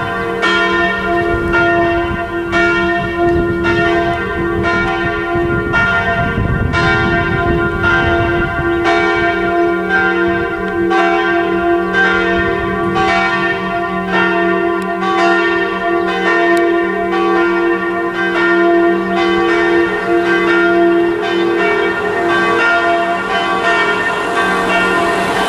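Church bells swinging in a full peal, their strikes overlapping in a steady rhythm of about one and a half strokes a second over a lasting hum of ringing tones.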